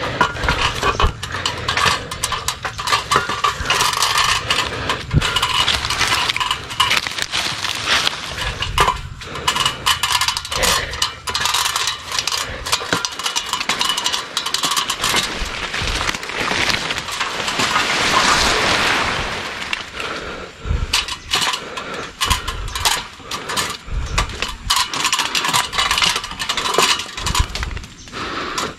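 KEELAT mini cordless electric chainsaw running and cutting through cempedak branches, with constant rattling and clattering and a longer, smoother stretch of cutting a little past the middle.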